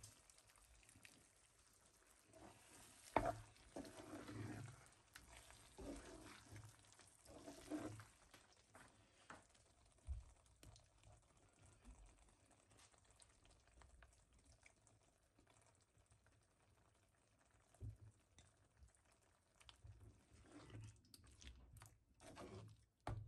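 Faint cooking sounds from a pan of thick chicken curry: a sharp clink about three seconds in, soft bubbling and shuffling, and a wooden spatula stirring the curry near the end.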